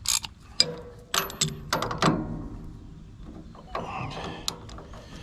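Metal hand tool clinking and scraping against the belt-tension adjuster of a Wood-Mizer LT15 Wide sawmill: a 19 mm wrench being worked onto a nut in a cramped spot where it does not fit easily. Sharp clinks over the first two seconds, then rubbing and scraping, with another scrape near the end.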